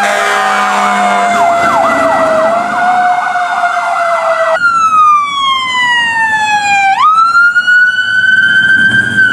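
Fire engine siren on an emergency run: a fast electronic yelp over a steadier siren tone that slowly falls. About four and a half seconds in, this cuts to a fire department pickup's electronic siren wailing in slow sweeps, falling, then jumping back up and holding high.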